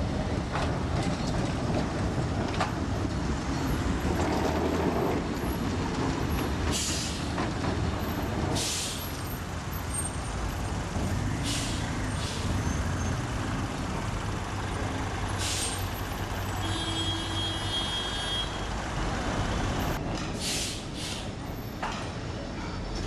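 Lisbon Remodelado four-wheel tram running along street track with a steady rumble, loudest a few seconds in as it passes. Several short hisses break in along the way, and a brief high squeal sounds about two-thirds through.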